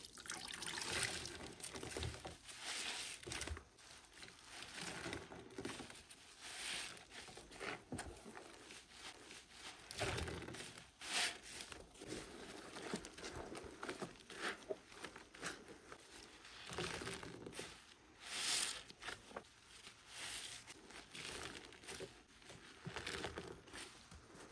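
Wet, soap-soaked foam sponges squeezed and pressed by gloved hands in a tray of sudsy water. Irregular squelching and sloshing comes and goes with each squeeze, every second or two, as water is pressed out and drains back.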